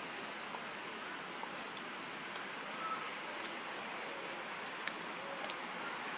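Outdoor summer ambience of insects: a steady hiss with a thin, high tone pulsing evenly and rapidly. A few faint scattered clicks and short chirps sound over it.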